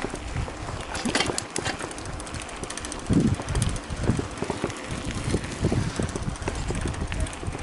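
Wind buffeting the microphone of a camera riding on a mountain bike, over the rumble of tyres rolling on asphalt. A few short rattles come about a second in.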